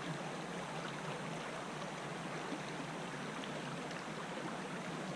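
Flowing river water rushing steadily, an even hiss of moving current.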